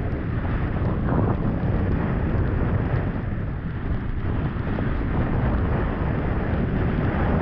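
Steady wind rumble on the microphone of a camera carried by a skier moving downhill, with the hiss of skis sliding over soft snow underneath.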